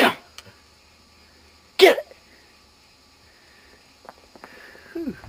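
A dog barking: a sharp bark at the start and another about two seconds in, then a shorter, softer one near the end.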